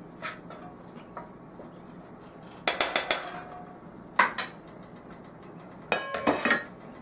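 Stainless steel cookware clattering: a pan and lid knocked and set down on the stovetop in a few short bursts of clinks and knocks, a second or so apart, one of them briefly ringing.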